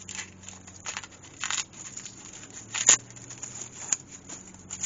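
Dry papery outer skins being peeled off an elephant garlic bulb by hand, a few short crackles and rustles, the loudest about three seconds in.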